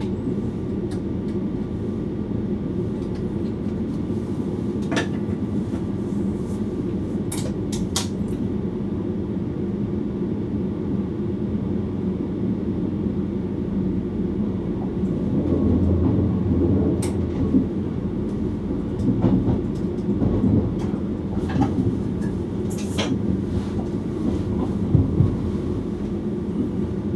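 Running noise of an NS VIRM double-deck electric train heard from inside the driver's cab: a steady low rumble of wheels on rail, with a few sharp clicks and clacks from rail joints or points and a brief louder swell in the middle.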